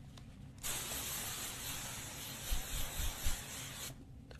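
A spray hisses steadily for about three seconds, starting and stopping abruptly, with a few soft low bumps partway through.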